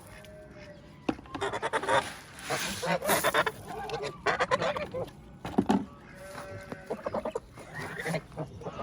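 Geese honking in repeated bouts of calls, several calls overlapping at times.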